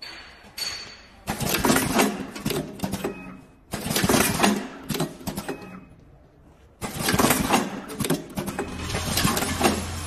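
Automatic power-cord plug crimping machine cycling: three stretches of rapid mechanical clicking and clattering, each a couple of seconds long. A steady low hum comes in near the end.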